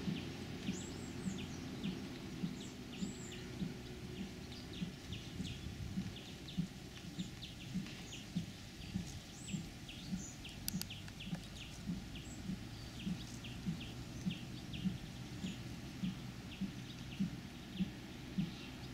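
Small square baler working: its plunger thuds with a click about twice a second, steady and even, over the low drone of the tractor pulling it. Birds chirp now and then.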